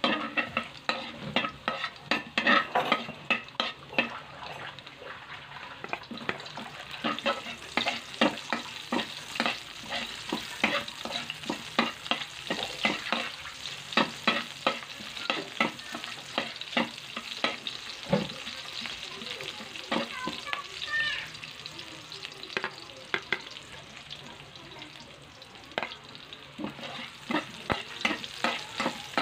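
Metal spatula repeatedly scraping and clacking against a steel wok as chopped garlic and onions sauté in hot oil, with a steady sizzle underneath.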